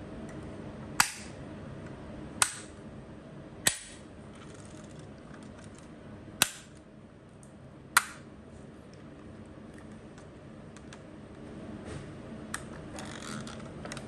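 Five sharp clicks, one every second or so, as the doors of a 1:24 diecast Bentley Mulsanne model are snapped shut one after another. Near the end comes one smaller click and some faint handling rattle.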